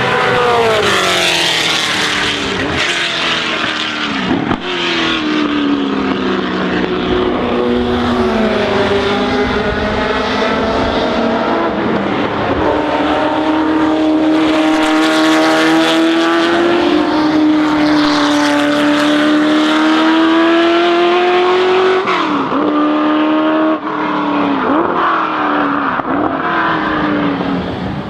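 Ford GT40's 7.0-litre naturally aspirated V8 racing at full noise, loud throughout. Its pitch falls at the start, climbs slowly and steadily through a long pull in the middle, then drops and picks up again several times in quick succession near the end.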